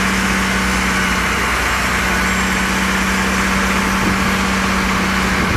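Fire engine's engine running steadily with a constant low hum, over a steady hiss.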